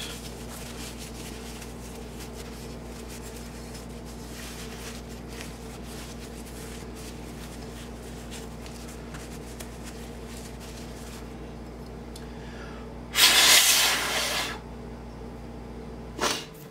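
Paper towel rubbed along a Kel-Tec P3AT's steel slide, a faint scrubbing over a steady low hum. About thirteen seconds in comes a loud hissing rustle lasting just over a second, and a brief one near the end.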